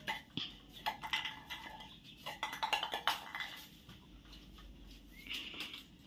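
Soft grass broom sweeping a tiled floor: scratchy strokes mixed with a scatter of short clicks and clinks.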